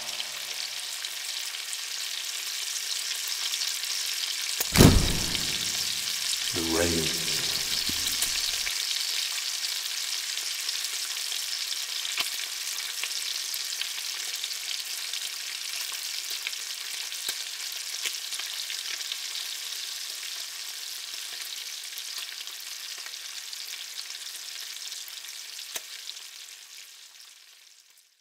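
Egg frying in a pan: a steady sizzle that fades out near the end, with a single thump about five seconds in.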